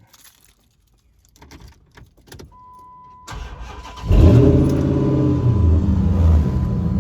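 Dodge Magnum being started: a few quiet clicks, then a steady electronic chime, the starter cranking briefly about three seconds in, and the engine catching with a loud flare of revs before settling into a steady idle.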